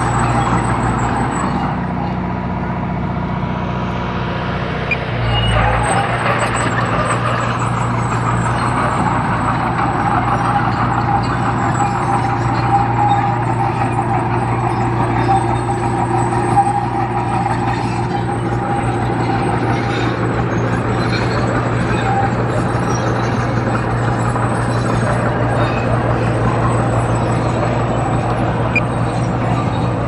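Diesel engine of a Komatsu D20P bulldozer running steadily at work, with a shift in its low note about five seconds in.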